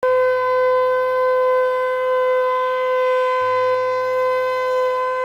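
Conch shell blown in one long, steady note, with a fainter low hum underneath that drops out briefly about three seconds in.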